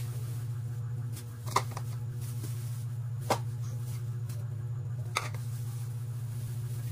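A steady low hum throughout, with three light knocks about two seconds apart as plastic-gloved hands handle a slice of white bread and set a ceramic bowl down on the counter.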